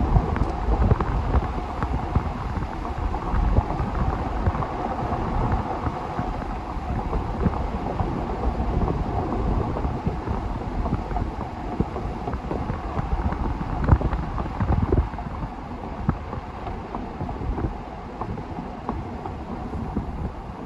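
Wind buffeting the microphone in uneven gusts, over a steady rushing noise that fades somewhat after about fifteen seconds.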